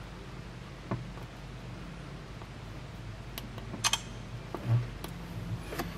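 Fingers handling an iPhone 6: a few light clicks and taps, with a sharper double click just before four seconds in and a soft low thump soon after, over a steady low hum.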